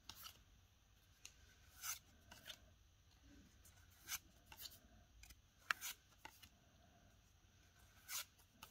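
Pokémon trading cards slid one by one off the front of a pack's stack and onto the back, making faint papery swishes and flicks, about eight at uneven intervals.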